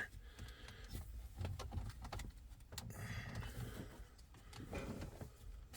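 Faint clicks and light rattling of a car radio head unit being worked loose and pulled out of the dashboard.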